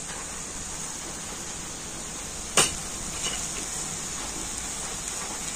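Steady sizzle of grated raw papaya frying in a metal kadai, with a single sharp click about two and a half seconds in.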